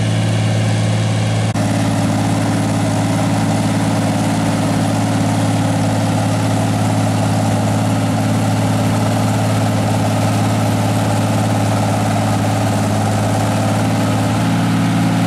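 Minneapolis-Moline tractor engine running loud and steady under load as it pulls a weight-transfer sled, holding one constant pitch with no revving up or down.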